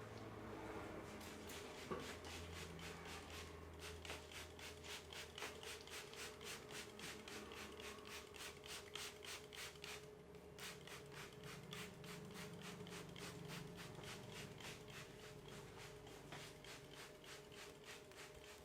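Hands rubbing briskly over hair and scalp in a head massage, a quick even rhythm of about four to five strokes a second with a short pause about ten seconds in. A faint steady hum runs underneath.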